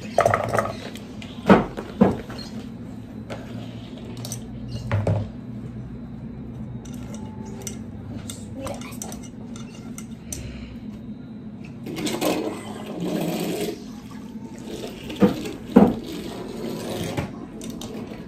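Cut carrots and broccoli being tipped from a plastic colander into a metal cooking pot and moved around in it: rustling and clattering, with a few sharp knocks of the colander and the pot, two about a second and a half in and two more near the end.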